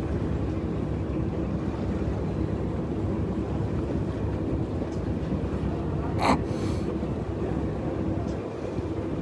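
A tour boat's engine running steadily as a low hum under a rush of water and wind. A brief sharp sound comes about six seconds in.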